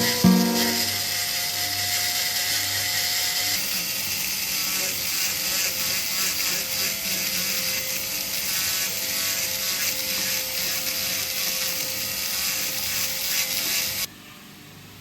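Steady abrasive rubbing of a tool against a metal ring during jewellery repair work, cutting off suddenly near the end.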